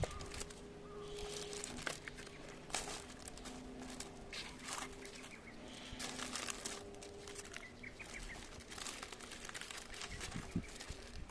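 Irregular crinkling and scraping with scattered clicks, as from handling material by hand. A bird chirps faintly in the background.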